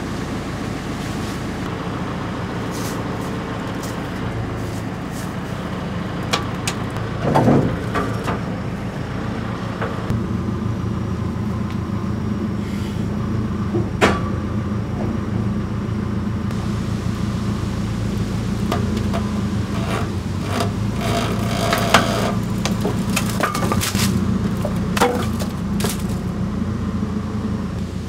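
An engine idling steadily, with scattered knocks and clanks of wood and steel as a heavy log is shifted and blocked on a sawmill's steel bed; the sharpest knocks come about halfway through and again later on.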